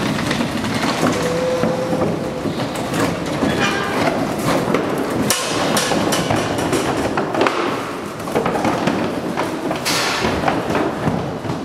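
Cattle hooves thudding and clattering on a livestock trailer's floor and slatted ramp as the animals are unloaded, with scattered knocks throughout.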